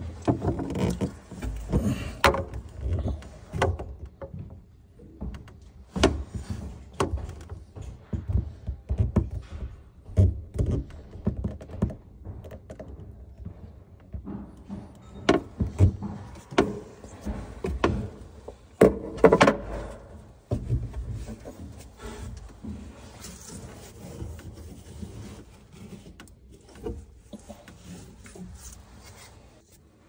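Irregular knocks, taps and rubbing as a white PVC drain fitting is handled and worked onto the drain stub inside a wooden sink cabinet, with a cluster of louder knocks about two-thirds of the way through.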